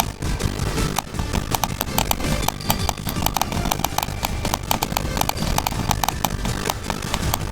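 Rapid, irregular clicks, several a second, over a steady low rumble.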